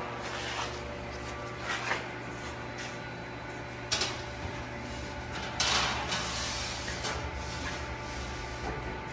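Large steel sheet knocking and scraping against a press brake's die and back gauge as it is slid into place, with a sharp knock about four seconds in and a longer scraping clatter shortly after. A steady low machine hum runs underneath.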